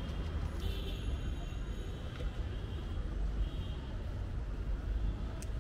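Street traffic background: a steady low rumble, with a few brief higher-pitched tones and faint clicks now and then.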